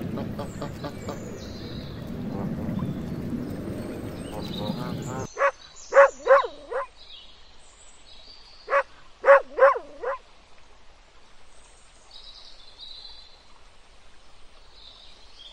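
A steady low rumble of wind and water noise at a pond cuts off abruptly about five seconds in. A dog then barks in high-pitched yips, in two quick bursts of about four, a few seconds apart. Faint high bird chirps follow.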